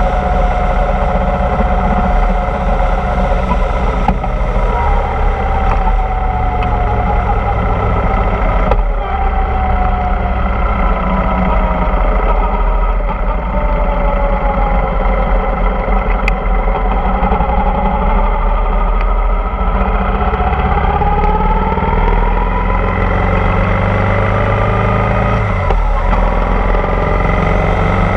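Motorcycle engine running on the move, its pitch falling as it slows for a junction around the middle and rising again as it picks up speed, with wind rumble on the microphone.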